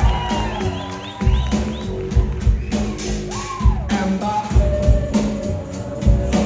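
Live rock band playing: a steady drum beat with a bass line under it.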